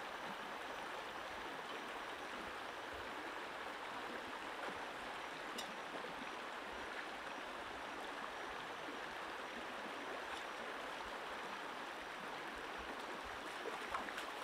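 Shallow stream running over rocks: a steady rushing of water at an even level.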